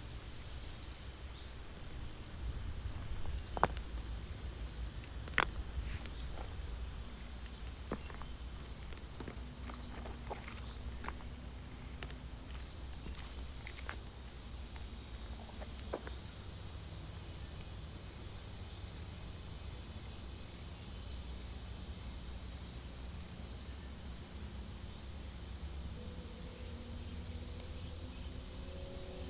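A short, high rising chirp from a small forest animal, repeating every one to two seconds, over a low steady background, with a few sharp clicks a few seconds in.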